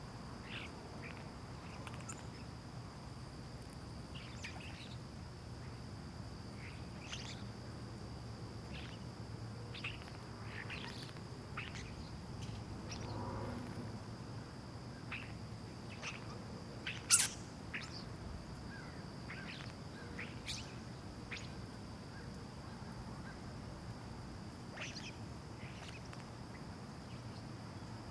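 Small birds chirping sporadically over a low, steady background rumble, with a faint steady high-pitched tone running underneath. One louder, sharp call stands out a little past halfway.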